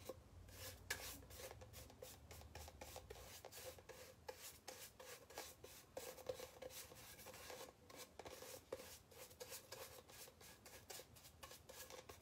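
Paintbrush stroking wet paint onto a cardboard paper-towel tube: a faint, quick run of repeated brushing and rubbing strokes.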